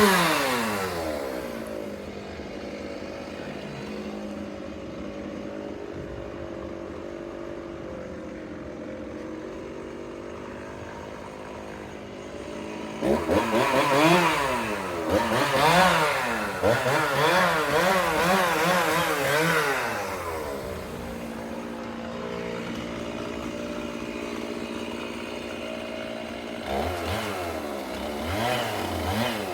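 Two-stroke chainsaw felling a tree: it revs and drops back at the start, then runs steadily. A little under halfway it cuts hard for several seconds, its pitch wavering quickly up and down under load, then settles and revs up again near the end.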